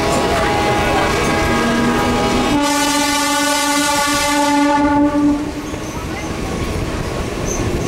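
Train running along the track, with a train horn sounding over it. Fainter horn tones come first, then a loud, steady blast starts about two and a half seconds in and stops a little after five seconds.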